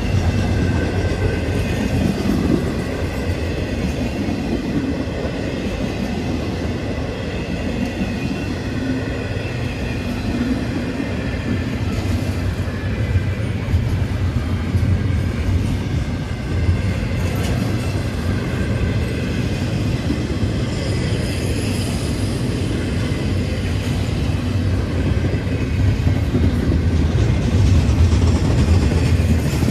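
Canadian National double-stack intermodal freight train rolling past: a steady, loud rumble of the loaded well cars on the rails.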